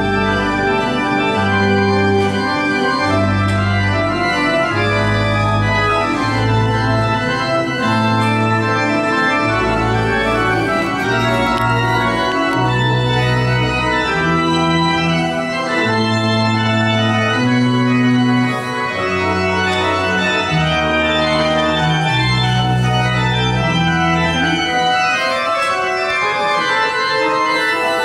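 Pipe organ playing sustained full chords over a slowly moving bass line whose notes change about once a second.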